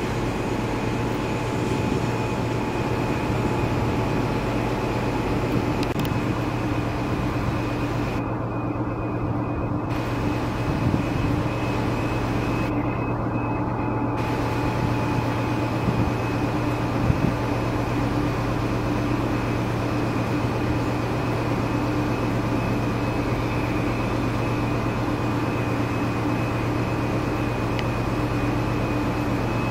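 Diesel engines of an East Midlands Trains Class 222 Meridian running steadily: a continuous low drone with a thin high whine over it, and a few faint knocks.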